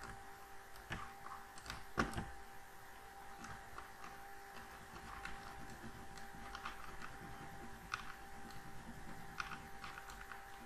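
Computer mouse clicking now and then while the eraser is dragged across the canvas, a few sharper clicks among softer handling ticks, over a steady faint electrical hum.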